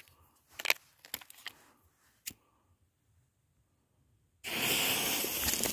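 A few faint clicks, then about four and a half seconds in the fuse of a small 200-gram firework cake catches with a sudden, steady, spitting hiss of burning sparks.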